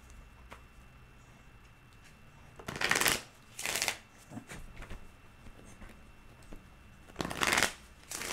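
A tarot deck being shuffled by hand: short rustling, riffling bursts of cards, two about three seconds in and two more near the end, with quiet pauses between.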